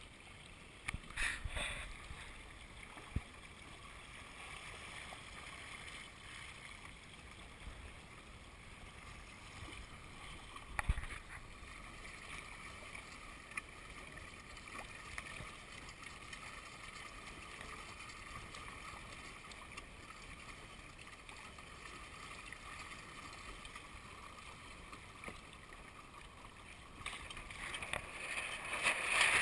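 Water lapping and gurgling along the hull of a sailing Hobie kayak, low and steady, with a few faint knocks and growing louder near the end.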